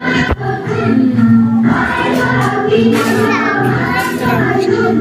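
Background music: a song with voices singing over steady held notes.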